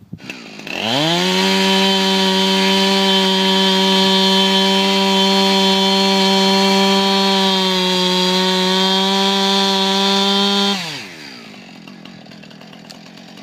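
Chainsaw revving up to full throttle and running high and steady for about ten seconds, its pitch dipping briefly under load partway through, then dropping back to a low idle.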